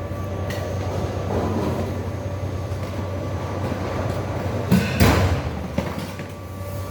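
Steady mechanical hum from a running motor, with a couple of knocks about five seconds in.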